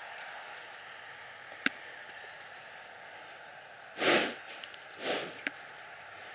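Pony nosing right at the camera: two short breathy whooshes about a second apart, with a couple of small clicks, over a faint steady hiss.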